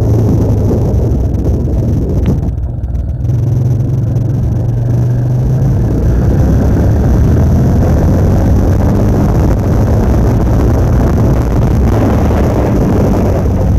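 Motor vehicle engine running with a steady low drone, easing off briefly about two and a half seconds in before pulling on again.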